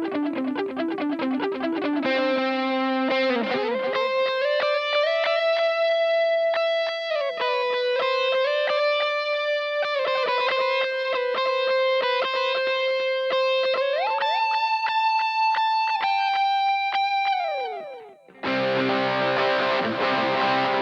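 Electric guitar played through a BOSS GT-100 multi-effects preset with a distorted, sustaining tone. It opens with a quick run of picked notes, moves to long held lead notes that slide and bend up and down, dives downward near the end, and then crashes into heavy distorted chords.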